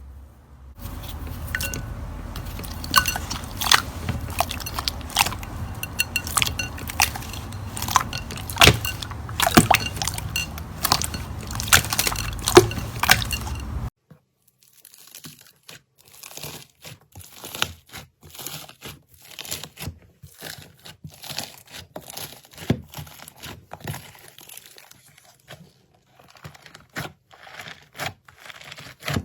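Slime being squeezed and pressed by hand: dense, irregular crackling and popping clicks. About halfway through it cuts to a quieter clip where the low background hum drops away and the crackles carry on more softly.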